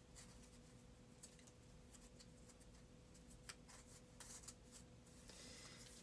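Faint rustling and light taps of paper: a small kraft-paper envelope and card being handled and shifted, a few scattered soft clicks and a brief rustle near the end.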